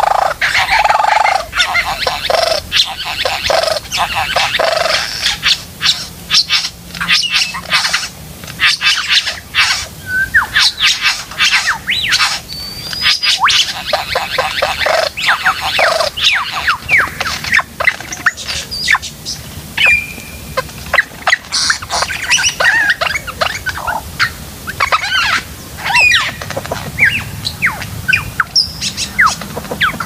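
Superb lyrebird singing while displaying: a fast, continuous run of sharp clicks, short whistles and quick rising and falling calls, with a brief pause about two-thirds of the way through.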